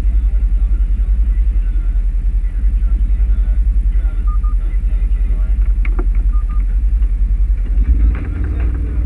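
Polaris RZR side-by-side's engine and drivetrain running as it drives over a rough dirt trail: a steady low rumble with a fast pulsing. The engine note shifts near the end.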